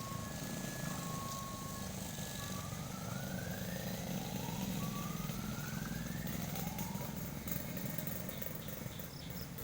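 A motor vehicle's engine running, rising in pitch twice as it speeds up.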